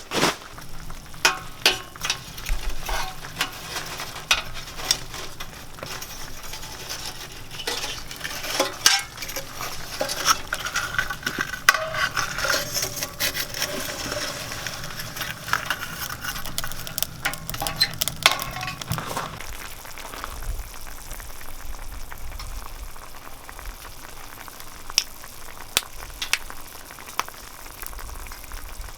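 Food sizzling in a hot pan while being stirred, with utensil scrapes and clinks against the pan. The stirring stops about two-thirds of the way through, leaving a softer steady sizzle with a few stray clicks.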